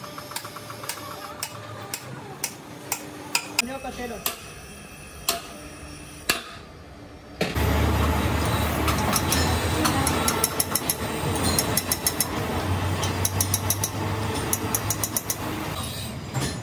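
Sharp metallic taps, a few a second, as the valves of an engine cylinder head are struck with a metal tool. About halfway through, a louder steady machine hum with clinks and knocks of metal takes over.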